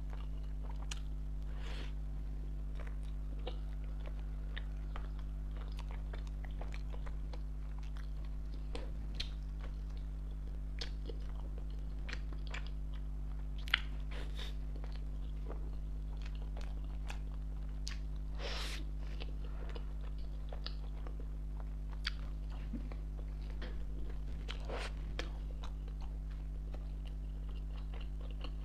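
A person biting and chewing soft ice cream bread buns close to the microphone: many small wet mouth clicks, with one sharper click about halfway, over a steady low hum.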